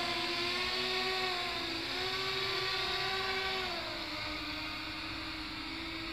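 Electric motors and propellers of a scratch-built multirotor RC flying saucer humming as it hovers, the pitch wavering with throttle. About four seconds in the hum drops a little in pitch and loudness as the craft settles down near the ground.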